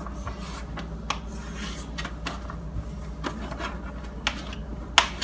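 Knife slicing a raw sweet potato into fries on a cutting board: irregular scraping cuts and taps of the blade against the board, with one sharper knock about five seconds in.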